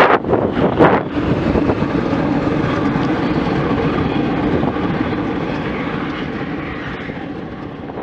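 Wind buffeting the microphone for about a second, then the steady rolling drone of a velomobile travelling along the road, which slowly fades toward the end.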